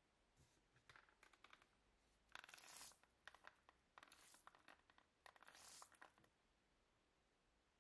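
Faint crackling fizz of foam and bubbles popping on a light acid bath, in several short bursts. It stops about six seconds in.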